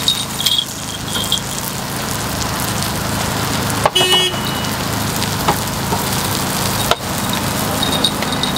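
Takoyaki batter sizzling on a hot griddle, with scattered light clicks, over a steady low hum. A brief ringing tone sounds about four seconds in.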